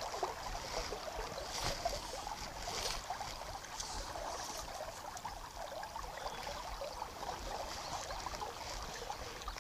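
Steady rush of a shallow river running over a pebbly bed.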